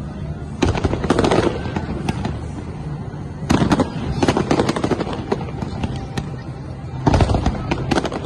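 Fireworks display: volleys of many sharp bangs and crackles in quick succession. They come in three loud clusters, a little under a second in, about three and a half seconds in, and near the end.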